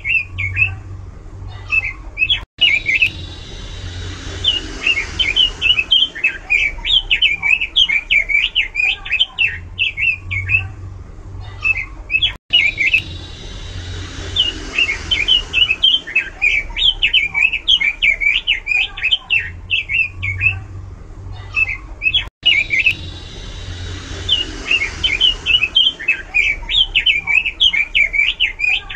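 Pekin robin singing a rapid, varied chirping and warbling song. The same stretch of song repeats about every ten seconds, with a brief cut-out between repeats.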